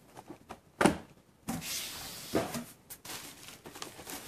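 A sharp knock about a second in, then rustling and crinkling of bubble wrap and cardboard as a hand digs into a packed shipping box, with a smaller knock partway through.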